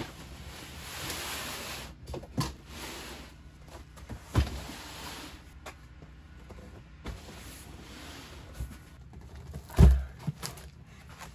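Heavy cardboard boxes, each holding an 18-inch subwoofer, slid and set down on a plastic folding table: cardboard scraping for the first two seconds, then several dull thumps, the loudest near the end.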